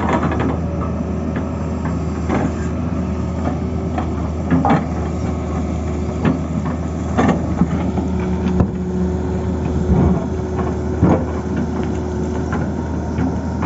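Tata Hitachi excavator's diesel engine running steadily under load, with repeated sharp knocks and clanks from the machine as it cuts into the road.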